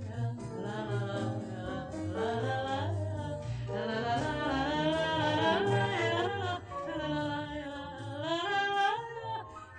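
Singing without words, humming-like, with the melody sliding up and down, over a small band with double bass playing low notes.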